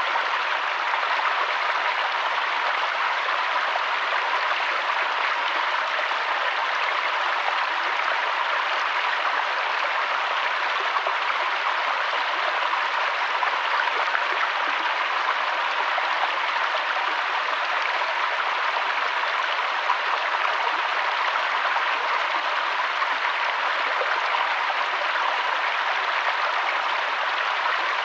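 Mountain waterfall rushing steadily, an even hiss of falling and flowing water.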